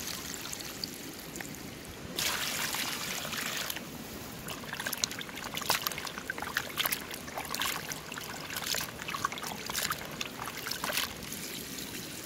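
Water poured out of a plastic basin onto grass in the first few seconds, then hands scrubbing a basin full of raw chicken feet in water, a busy run of splashes and sloshing that eases off near the end.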